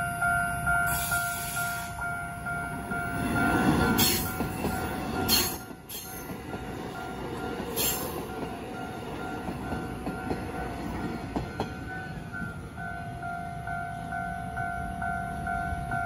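Level-crossing warning bell ringing in a steady, rapidly repeating electronic ding while an electric multiple-unit local train runs through the crossing. The train's rumble is loudest about four seconds in, with a few sharp clicks as the cars pass, then settles to a steadier running noise.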